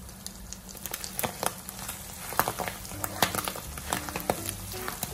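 Bopis (minced pork lung, liver and heart) popping and crackling in the pan as its liquid cooks down, with irregular sharp pops, the popping that signals the dish is nearly cooked. A spatula stirs the mixture near the end.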